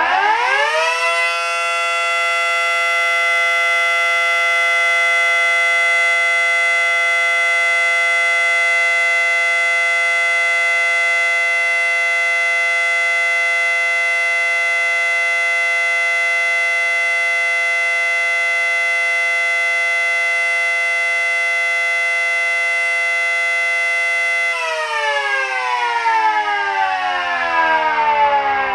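Mini Model 5T miniature siren winding up to full pitch within about a second and a half, then holding a loud steady tone of several notes at once, the alert signal. About 24 seconds in it is shut off and winds down with falling pitch.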